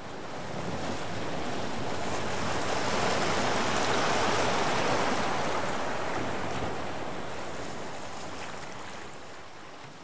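A single long rush of noise, like wind or surf, that swells up to a peak a few seconds in and then slowly dies away, with no tone or beat in it: a title-card sound effect.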